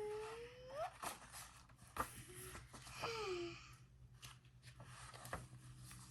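A young child's soft, wordless vocal sounds: a rising hum near the start and a falling, breathy sigh-like sound about three seconds in, with a few faint clicks between.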